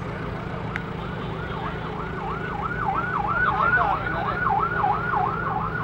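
A warbling siren whose pitch rises and falls quickly, about three times a second. It comes in faintly about a second and a half in and grows louder, over a steady low hum.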